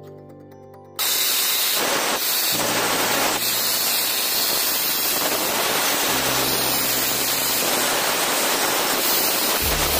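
Angle grinder with a cutting disc cutting into a plywood board: a loud, steady grinding hiss that starts suddenly about a second in and runs on without a break.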